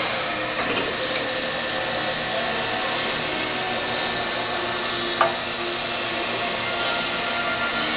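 Automatic copy shaper with drilling head running empty, with no wood being cut: a steady mechanical whir of the spindle and drive. A single sharp knock about five seconds in.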